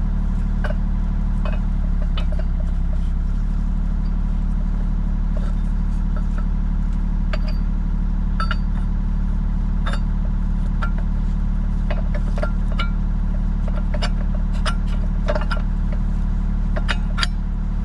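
Excavator's diesel engine running steadily, with scattered light metallic clinks and clicks.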